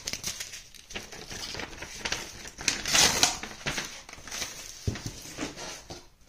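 A paper envelope being opened and handled: irregular paper rustling and crinkling, loudest about three seconds in.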